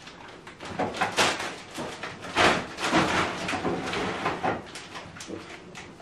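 Plastic shopping bags and crisp packets rustling and crinkling in short rustles every second or so while groceries are unpacked into a fridge.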